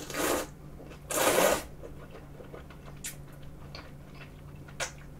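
Thick udon noodles in a spicy kimchi broth being slurped into the mouth: two hissy slurps, the first at the start and a louder one about a second in, followed by quieter chewing with a few small clicks.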